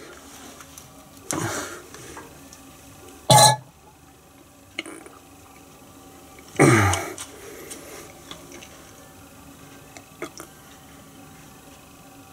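A man's short strained grunts, each falling in pitch, about a second and a half in and again about seven seconds in, from the effort of forcing thick gear oil out of a hand syringe. A brief sharp noise, louder than the grunts, comes about three and a half seconds in.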